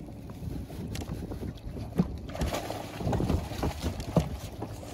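Wind buffeting the microphone and water slapping against the hull of a small aluminium boat, rougher and more uneven from about halfway through. Two sharp knocks stand out, about two seconds in and near the end.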